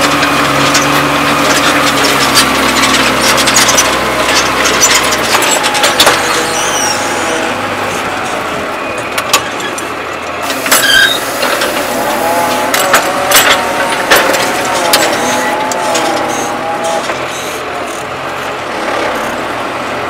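New Holland TM130 tractor's diesel engine running under load as it pulls a Kverneland reversible plough through the ground, with the plough's steel frame and bodies clattering and rattling. The steady engine drone drops away about five seconds in, leaving mostly rushing noise and sharp clanks from the plough.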